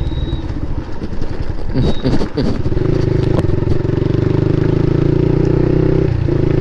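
Motorcycle engine running through an aftermarket Akrapovic exhaust while riding. The pitch rises and falls about two seconds in, then the engine runs steadily, with a short dip near the end.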